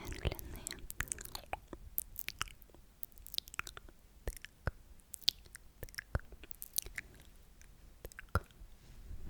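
Close-miked sticky, wet mouth sounds: irregular tongue and lip clicks and smacks, several a second, coming and going throughout.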